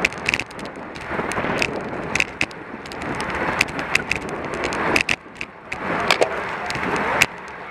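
A road racing bicycle rolling at speed in a pack: a steady rushing noise of air and tyres on asphalt, with frequent sharp, irregular clicks and rattles from the bike and its camera mount.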